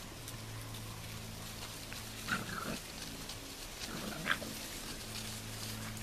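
American bulldog puppies giving short, high-pitched cries as they play, in two brief outbursts about two and four seconds in, over a steady low hum.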